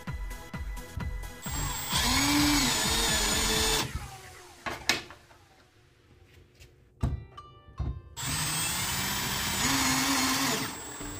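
Milwaukee cordless drill driving screws through a galvanized metal bracket into a wood board, in two bursts of about two seconds each: the motor whine rises and falls in the first, and the second starts about eight seconds in. A few light clicks of the brackets being handled come between the bursts.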